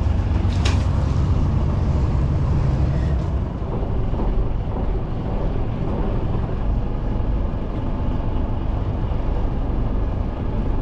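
Steady low rumble aboard a small fishing boat at sea, with one short sharp click about a second in.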